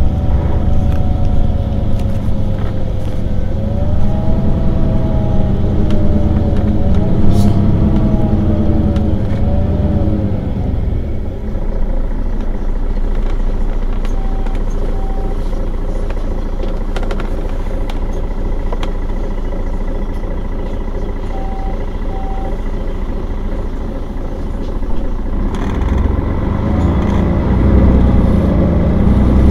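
Mercedes-Benz Citaro facelift city bus standing at a stop with its engine running, a steady low rumble. A whine rises and falls over it for the first third and again near the end. Two short double beeps come in the middle.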